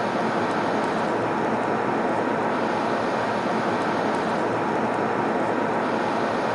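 Steady in-flight airplane cabin noise: an even, unchanging rush with a faint steady hum in it.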